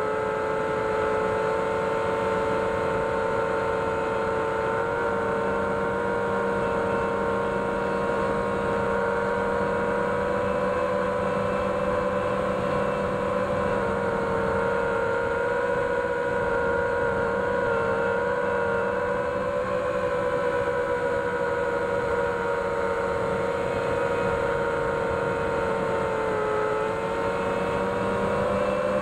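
FPV drone's motors and propellers whining in flight, recorded by the onboard DJI Action 2. The steady tone wavers in pitch with the throttle and dips briefly near the end before rising again.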